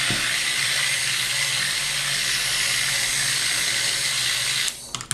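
Stick blender running steadily in a container of cold process soap batter, mixing in the fragrance oil; it is switched off near the end and cuts out abruptly.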